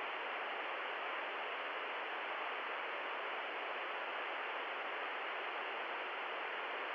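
Steady, muffled hiss of TV-style static noise, even and unchanging, with no high end.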